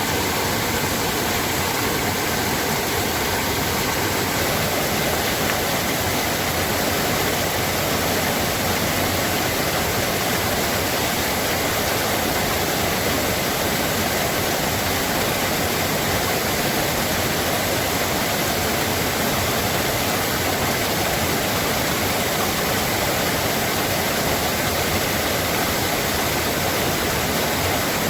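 Running water rushing steadily, a constant full hiss with no breaks.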